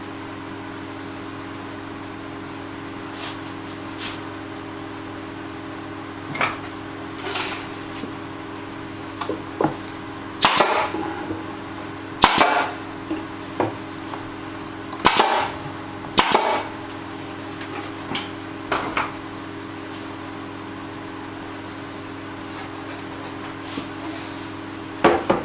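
Irregular sharp knocks and clatters of hand work on wood and tools, about a dozen in all, the loudest bunched in the middle, over a steady low hum.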